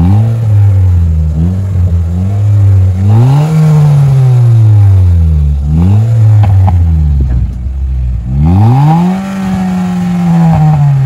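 A Honda Brio Satya's 1.2-litre four-cylinder engine breathing through a freshly fitted aftermarket racing exhaust. It is blipped up and down several times; the last rev rises higher, is held for about a second, and then falls away.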